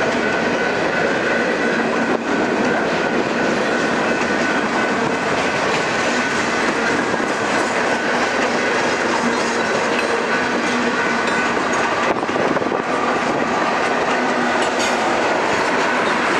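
Freight cars rolling steadily past: a continuous rumble and rattle of wheels and couplers, with a few sharp clicks and a thin high wheel squeal running under it on the curve.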